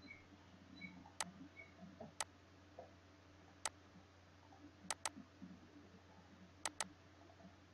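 Computer mouse button clicking: three single clicks, then two quick double-clicks about five and seven seconds in, as folders are opened. A faint steady hum lies underneath.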